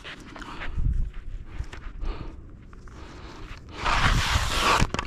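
Scattered footsteps and light knocks, then a scraping hiss lasting about a second near the end, cut off by a sharp knock.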